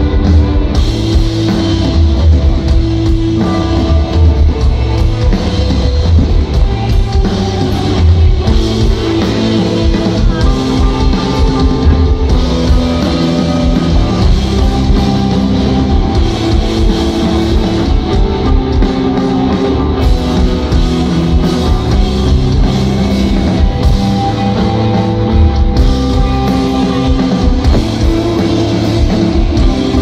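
Live instrumental desert rock played loud: electric guitars with sustained, echoing lines over bass and a drum kit, heard from the crowd.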